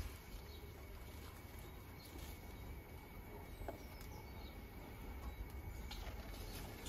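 Quiet outdoor ambience: a steady low rumble of wind on the microphone, with faint scattered ticks and rustles from the cherry tree's leaves and branches being handled.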